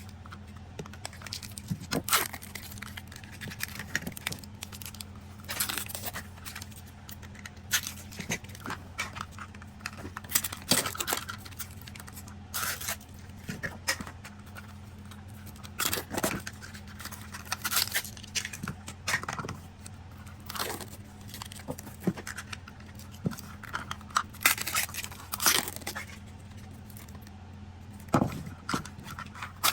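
Plastic toy capsules and their wrappers being handled and opened by hand: irregular clicks and clatter of plastic with tearing and crinkling of the wrapping. A steady low hum sits underneath.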